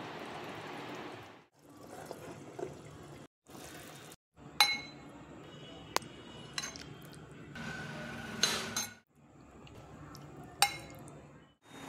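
A serving ladle clinking against a glass bowl as wet vegetable curry is spooned into it: a handful of sharp, ringing clinks amid soft slopping. The sound breaks off abruptly several times.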